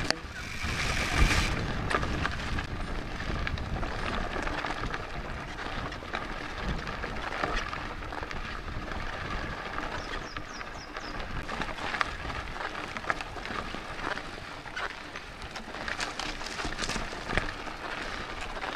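Mountain bike riding down a dry dirt singletrack: tyres crunching over loose gravel and dry leaf litter, with the bike clattering over bumps in a steady run of small clicks and knocks and one louder knock about a second in.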